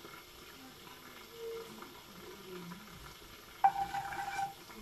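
Panch phoron spice seeds sizzling faintly in hot oil in a metal wok-style pan. About three and a half seconds in, a wooden spatula knocks into the pan and scrapes through the oil for about a second.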